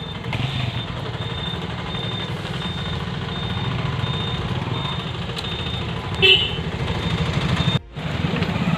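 Roadside traffic: motorcycles and other vehicles passing with their engines running, and a short horn toot about six seconds in.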